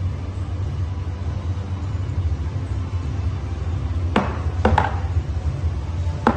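Stainless steel milk pitchers clinking against the counter and each other, three quick knocks about four seconds in and one more near the end, over a steady low hum.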